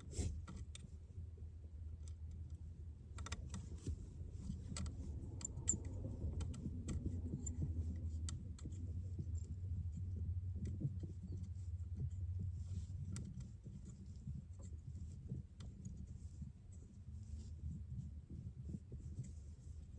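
Speaker wire being twisted and handled by hand: faint rustling and scattered small clicks of the copper strands and wire, over a low steady hum.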